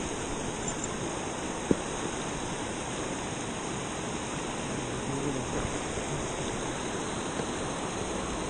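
River water rushing steadily, with a single sharp click about two seconds in.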